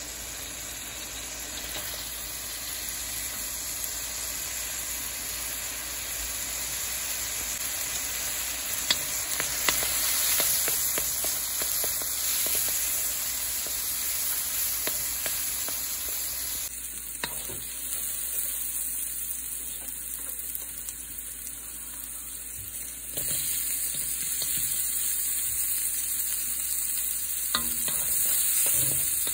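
Chopped garlic sizzling in melted butter in a steel pan, with a wooden spatula stirring and scraping against the metal in scattered light ticks.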